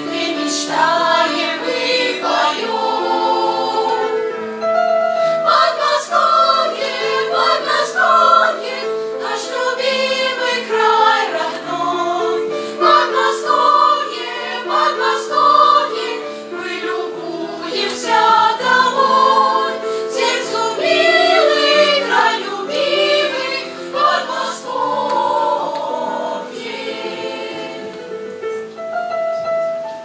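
Children's choir singing a Russian song in parts, the voices moving together in phrases.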